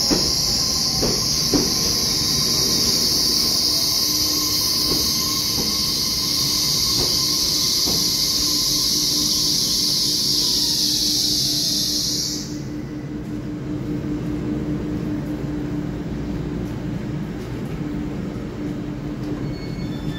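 Taiwan Railway EMU3000 electric multiple unit rolling past a station platform, with a few wheel clicks over the rail joints in the first two seconds. A loud high hiss runs over it and stops abruptly about twelve seconds in. At about the same time a whining tone falls and fades away.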